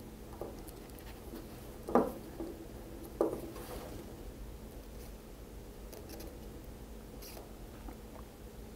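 Faint handling noises of fingers, wires and a soldering iron on a wooden workbench during soldering, with two short knocks about two and three seconds in, over a faint steady hum.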